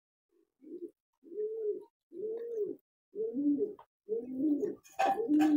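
A pigeon cooing: a run of about six low coos, each under a second long, coming roughly once a second and growing louder. A few sharp clicks come near the end.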